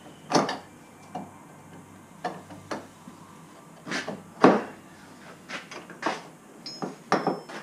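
Copper pipe pieces and fittings being handled and set down on a wooden bench top: about ten irregular knocks and clatters, with a short metallic ring near the end.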